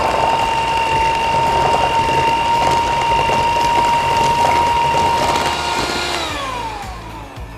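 Electric hand mixer running at a steady speed, its beaters whipping mascarpone and whipped topping in a glass bowl toward stiff peaks. Near the end the motor is switched off and winds down with a falling whine.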